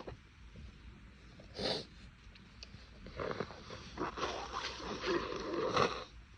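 A person's nose: a short sharp sniff, then a few seconds of snorting nose blows that stop shortly before the end, from a nose that is congested after a run of sneezes.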